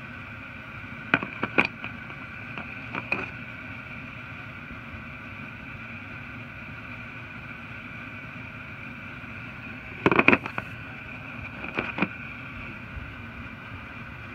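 Steel pullers and ball joint separators from a front end service tool kit clinking and knocking as they are handled, lifted from and set into their moulded plastic case: a few sharp knocks about a second in and around three seconds, the loudest cluster about ten seconds in and two more near twelve seconds. A steady background hum runs underneath.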